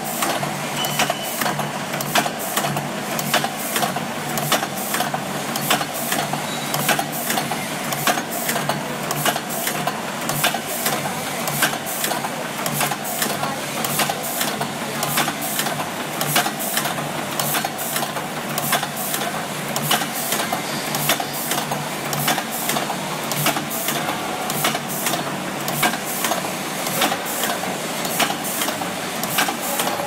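Metal-fittings factory machinery running steadily: a regular clicking, a few strikes a second, over a steady mechanical drone.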